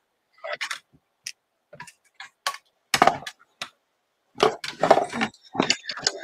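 Hand-cranked die-cutting machine feeding a plate sandwich through its rollers to cut a paper flower: a run of irregular clicks and cracks that come thicker near the end.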